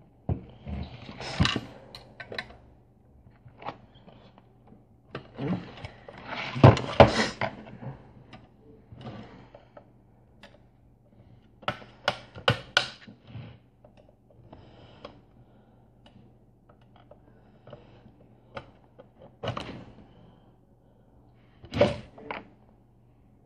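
A metal computer power-supply casing being handled and worked on at a workbench: scattered knocks, clicks and clatter, loudest about seven seconds in, with a quick run of sharp clicks around twelve seconds.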